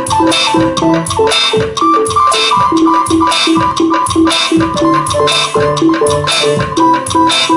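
Electronic music played on a Teenage Engineering OP-1 synthesizer: a steady drum-machine beat under short synth notes repeating in a looped melody.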